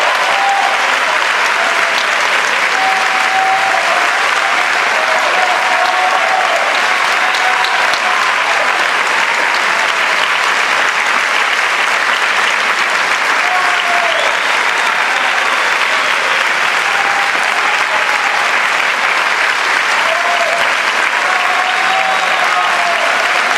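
Audience clapping steadily as an ovation, with a few voices calling out over the applause.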